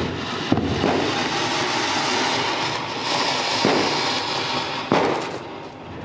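Ground fountain firework (anar) hissing steadily as it sprays sparks, with a few sharp cracks on top; the hiss dies down near the end.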